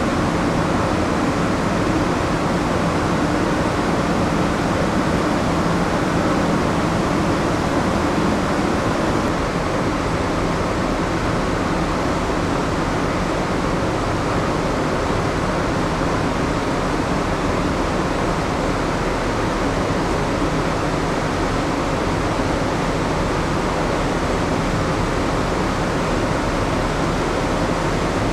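Steady hum and rush of a moored ship's ventilation and onboard machinery heard inside the vessel, an even noise with a low, constant drone underneath.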